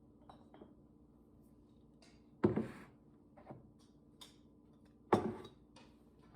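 Kitchen items being handled and set down: several light clicks and two louder knocks, about two and a half and five seconds in, over a faint steady hum.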